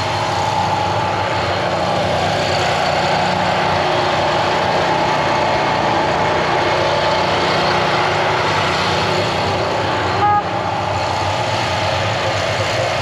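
Hot water gushing into a boat's bilge while the bilge pump runs, over a steady engine hum. A short beep about ten seconds in.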